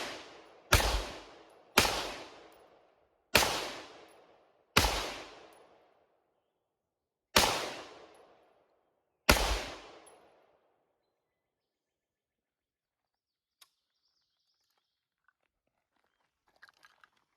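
Radical Firearms AR-15 rifle firing six single shots of mixed .223 and 5.56 ammunition at an uneven pace over about nine seconds. Each shot has a long fading echo. After the last shot the firing stops, leaving quiet with a faint click.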